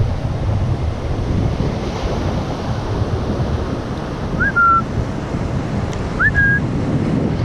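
Wind buffeting the microphone over the sound of surf. About halfway through and again nearly two seconds later comes a short whistle, each a quick upward slide into a brief held note.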